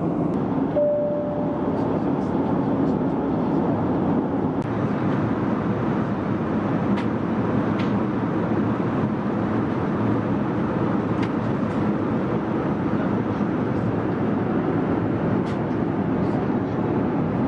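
Steady cabin roar of an Airbus A321-211 in cruise, from engine and airflow noise. A brief steady tone sounds about a second in.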